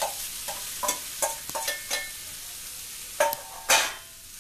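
A metal spoon scrapes and taps khoya out of a steel tin into a kadhai: an uneven run of clinks and scrapes, some with a short metallic ring, the two loudest knocks about three seconds in. Under them a light sizzle as the khoya meets the hot pan.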